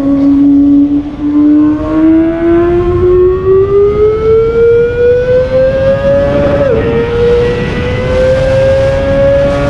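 Kawasaki ZX25R's 250 cc inline-four engine accelerating hard, its high-pitched scream rising steadily through a gear, with a quick upshift dip about two-thirds through, then climbing again toward another shift at the very end.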